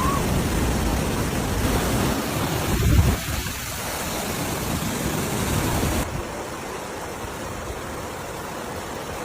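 Steady rushing noise of flowing floodwater, with a low thump about three seconds in. About six seconds in it cuts abruptly to a quieter, duller rush.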